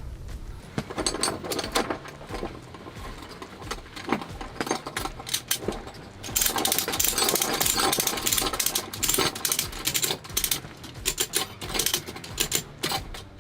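A snap hook ratchet strap being handled: irregular metallic clicking and rattling from the ratchet and its hooks, growing busier and louder from about six seconds in.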